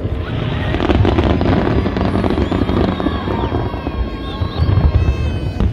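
Fireworks display: dense, continuous crackling and booming bursts, with high whistling tones gliding up and down from about halfway in.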